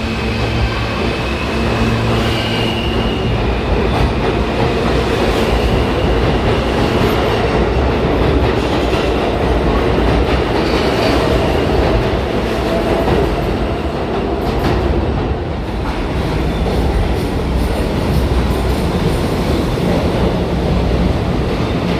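New York City subway train moving along the platform, a loud, steady rumble of wheels and motors with a few sharp wheel clicks over the rail joints.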